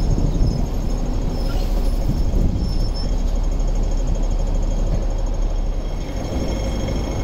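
Hong Kong double-deck electric tram close by: a steady low rumble, with a slight drop in loudness near the end.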